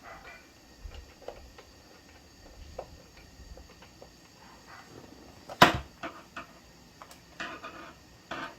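Scattered light clicks and knocks of a plastic toy being handled and worked on during repair, with one sharper knock a little past halfway and a few more near the end.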